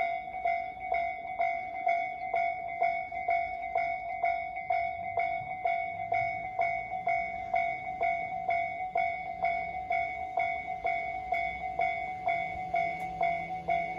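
Japanese railway level-crossing electronic warning bell ringing in a steady rhythm, about two clangs a second. Each clang is a ringing tone with a higher overtone. The crossing is active, warning that a train is approaching.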